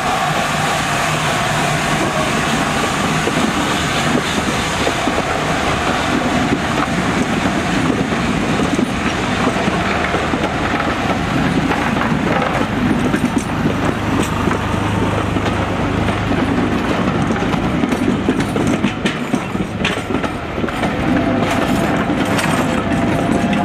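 A line of passenger coaches rolling past close by: a steady rumble and rattle of the wheels on the track, with clicks over the rail joints in the last few seconds.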